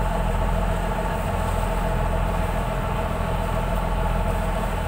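Boat engine idling, a steady unbroken drone with an even low hum.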